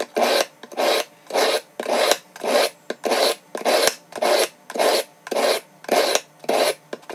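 Mundial chef's knife pulled again and again through the medium ceramic wheel of a MinoSharp Plus 3 water-fed sharpener: an even rasping stroke about twice a second, some sixteen in all. This is the medium-grit stage, smoothing the roughness the coarse wheel left on the edge.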